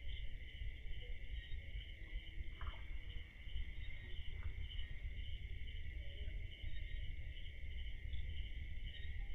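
A chorus of crickets trilling steadily, with a faint pulse, over a low steady rumble.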